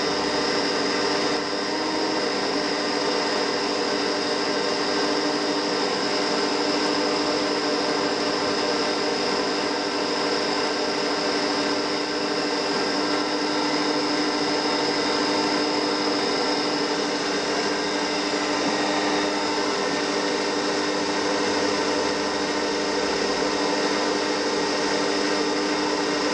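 CNC mini mill's spindle running steadily with a small cutter taking very shallow passes at a slow feed: an even hum with a high whine over a light hiss.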